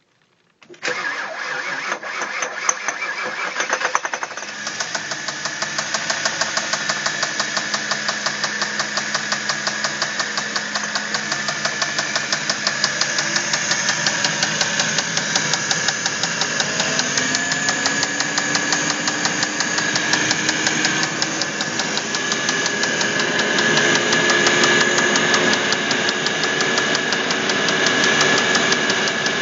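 Audi A8 D3 engine starting after a brief crank and then running with a loud, rapid, even knocking in time with the engine. This is rod knock from a failing connecting rod. The engine note climbs a little in the second half.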